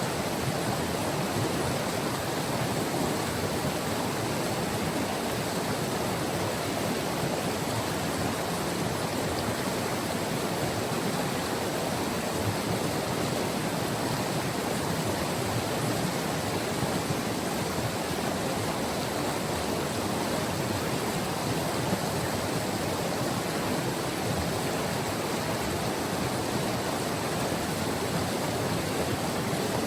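White River rushing steadily over its bed: an even, unbroken roar of flowing water.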